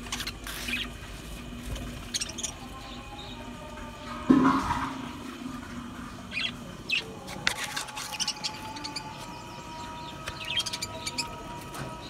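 A flock of budgerigars chirping and chattering in short, scattered calls. A single loud thump sounds about four seconds in.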